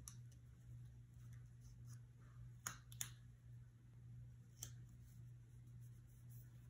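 Near silence with a steady low hum, broken by a few faint clicks and taps of stickers and a pen-like tool being handled on planner paper, two close together about two and a half seconds in and one more about four and a half seconds in.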